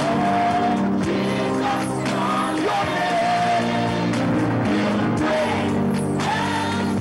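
Worship team of several singers singing a gospel chorus into microphones over steady instrumental accompaniment, with sliding, held vocal lines.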